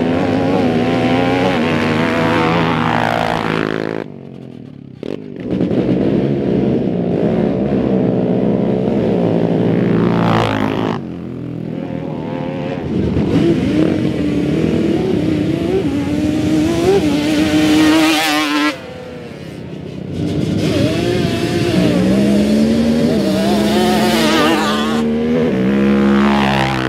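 Sport quad ATV engines revving hard as the quads launch down a dirt drag strip, four runs in a row with short breaks between them. Each engine's pitch climbs and then drops back at each gear shift.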